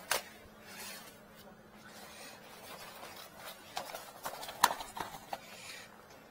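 Footsteps on concrete with a few scattered clicks and knocks, the sharpest about four and a half seconds in.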